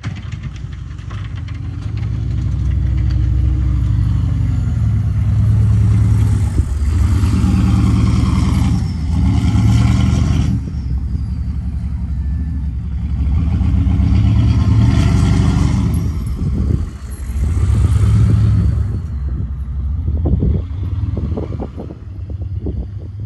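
Chevy K2500's 6.5 Detroit turbo-diesel V8 through a 4-inch straight pipe, working hard while plowing snow: it revs up and eases off four times, with a faint falling turbo whistle in the lulls. It fades near the end.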